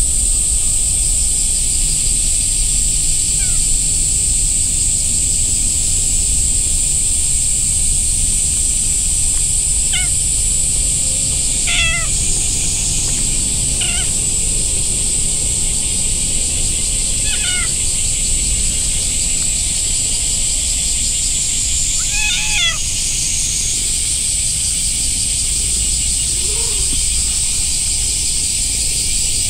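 Orange-and-white adult cat giving about five short meows while being stroked, spread between about ten and twenty-three seconds in, over a steady high-pitched drone.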